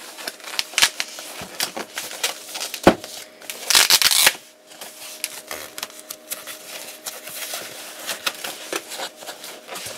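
A cardboard box and its white wrapping being handled and opened: scattered rustling, scraping and light knocks, with a sharp knock about three seconds in and a longer, louder rustle just after.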